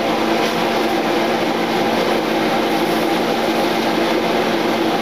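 Kitchen range hood fan running with a steady whir and low hum, over food sizzling in a skillet on the stove.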